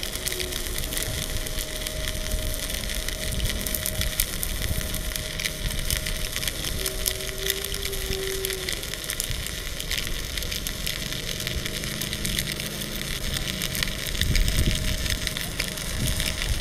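Stick-welding arc from a Marula mini inverter welder burning a 3.2 mm electrode along steel plate: a steady, dense crackling sizzle, a little louder near the end. The machine is built for 2.5 mm rods but holds the arc on the 3.2 mm rod.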